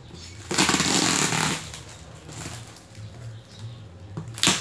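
Packing tape and plastic wrap on a cardboard box being cut and torn open with a box cutter: a loud rip lasting about a second, starting about half a second in, then a second short, sharp rip near the end.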